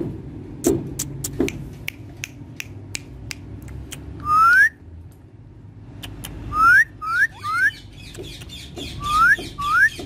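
Indian ringneck parakeet giving six rising whistles: one about four seconds in, three in quick succession around seven seconds, and two near the end. Before them comes a run of sharp clicks.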